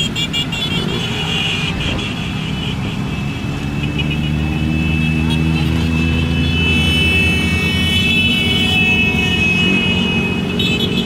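A procession of small motorcycles riding past at low speed, many engines running together, with one passing close so that its engine note grows louder in the middle.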